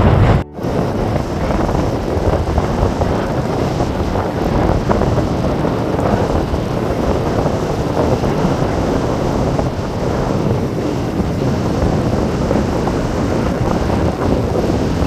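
Steady rushing wind buffeting the microphone, with a brief dropout about half a second in.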